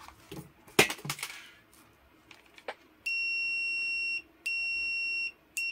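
Hioki DT4261 digital multimeter's continuity buzzer beeping as the shorted test leads read below the continuity threshold: one steady high beep of about a second, a brief gap, a second shorter beep, then quick short beeps starting at the very end. A couple of sharp clicks come about a second in, before the buzzer.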